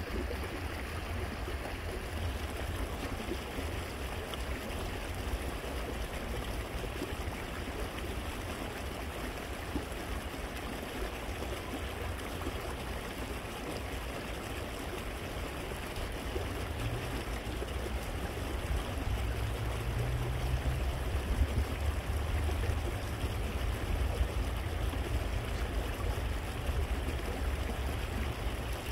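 Shallow rocky stream trickling and burbling steadily over stones. A low rumble underneath grows louder in the second half.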